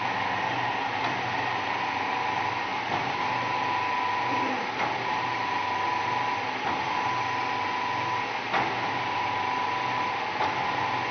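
Automatic bakpao encrusting machine running, wrapping dough around filling: a steady mechanical whir with a hum, and a sharp click about every two seconds as each bun is formed.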